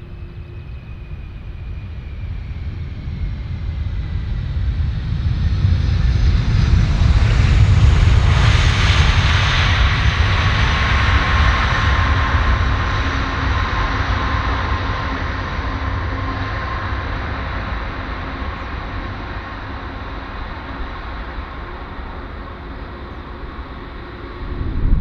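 Martinair Cargo Boeing 747-400F's four jet engines in reverse thrust on the landing rollout. The sound swells to its loudest about a third of the way in, then slowly dies down as the engines spool back, with a steady whine over the noise.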